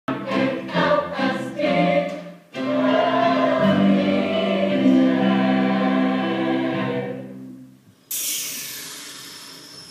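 Stage cast singing in chorus: a few short chords, then one long held final chord that fades out. About a second later the audience breaks into applause.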